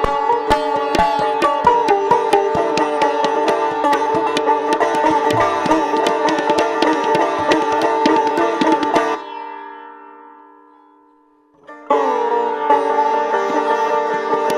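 Sitar played in a Hindustani classical performance, with tabla strokes beneath the plucked notes. About nine seconds in, the playing stops together and the sitar's strings ring on and fade away. Near the end the sitar starts again with a sliding, bent note.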